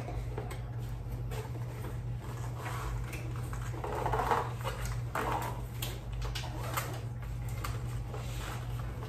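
Black cardboard gift boxes being handled and closed on a glass-topped table: light taps, clicks and rustles over a steady low electrical hum, with two brief louder sounds about four and five seconds in.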